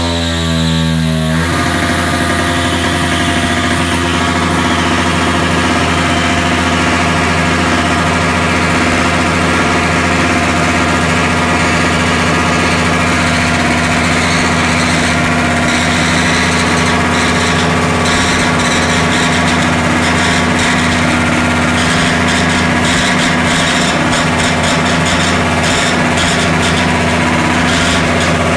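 Motorcycle engine revved up over the first second or so, then held at a steady high pitch while the rear tyre spins on the concrete floor in a burnout.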